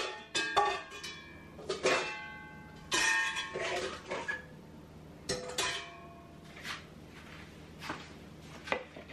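A bowl being handled on a kitchen counter: a series of knocks and clinks, several of them ringing briefly, most in the first four seconds and a few fainter taps later.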